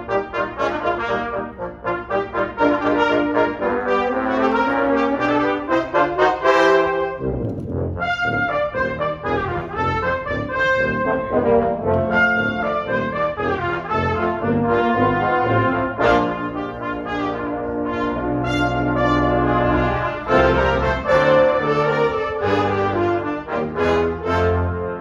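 Brass ensemble of trumpets, French horn, trombones and tuba playing a lively piece together. A low slide rises for a few seconds and lands on a loud full-band accent about seven seconds in.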